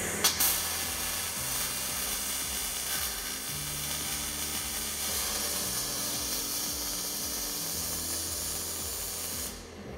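Robotic gas-shielded MIG/MAG welding arc: it strikes with a sharp crack just after the start, crackles and hisses steadily while the robot lays the weld, and stops shortly before the end as the weld program finishes.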